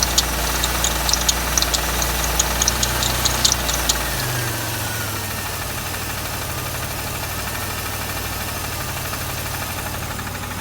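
Buick Riviera engine running with an irregular sharp knocking. About four seconds in the knocks stop, and the engine runs on a little quieter and smoother.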